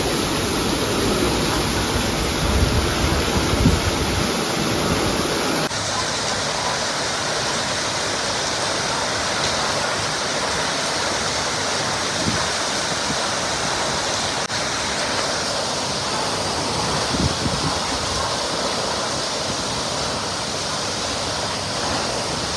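Heavy rain falling steadily, with runoff pouring off the edge of a corrugated metal roof onto the flooded lane below. The sound changes abruptly about six seconds in, and a few brief low thumps come through near the start.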